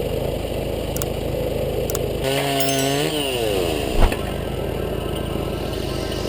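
Chainsaw on a homemade log-cutting machine running steadily, its pitch rising and then dropping over about a second as it cuts through a log. A single sharp knock about four seconds in.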